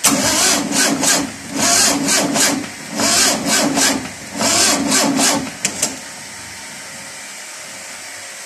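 VW Type 4 2-litre air-cooled flat-four being cranked by its starter motor in four short bursts, turning over rhythmically without firing, followed by two quick clicks. It fails to start, which the owner puts down to the jumper wires from the battery being too thin to give the starter enough power.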